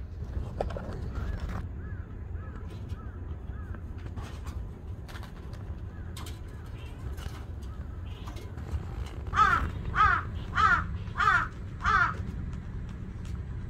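Crows cawing: faint calls in the first few seconds, then a run of five loud caws about two-thirds of a second apart near the end, over a low steady rumble.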